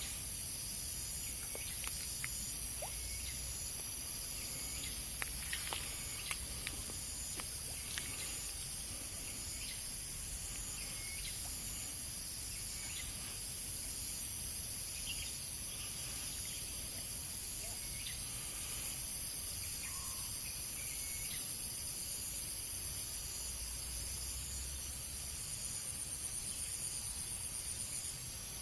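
Steady, high-pitched insect chorus with a faint pulsing trill in it, and a few light ticks.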